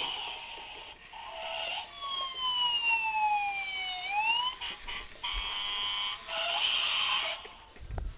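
Toy fire truck's electronic siren sound effect from its small built-in speaker: a tone sliding down in pitch over about two seconds, then swinging back up. It is followed by a short steady blast of several tones at once and more electronic chirps, and a low thump near the end.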